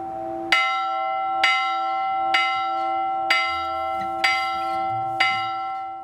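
Orthodox church bells hung in a wooden frame and rung by rope. A bell is struck steadily about once a second, six strikes in all, and each strike rings on into the next.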